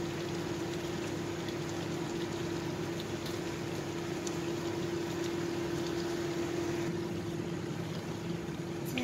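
Chicken in soy and fish sauce simmering in a wok, with faint scattered bubbling pops over a steady hum and hiss.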